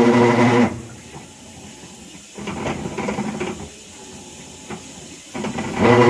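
Whirlpool Cabrio top-load washer grinding in loud buzzing bursts as it agitates: one stops just under a second in, a quieter grinding stretch follows around the middle, and the loud buzz starts again near the end. The grinding comes from a failed actuator plate.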